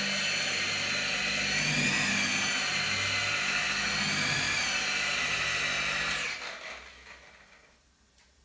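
Electric rotary polisher with a foam pad running at speed on a car's clear coat, a steady high whine that wavers slightly as it is worked over the paint. About six seconds in it is switched off and winds down.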